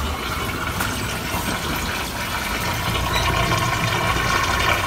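American Home top-load washing machine running its rinse cycle: water rushing steadily into the tub over a low machine hum.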